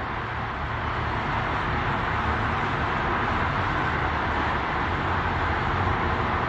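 Steady traffic noise from a multi-lane highway: an even hiss of tyres on the road with a low rumble underneath, no single vehicle standing out.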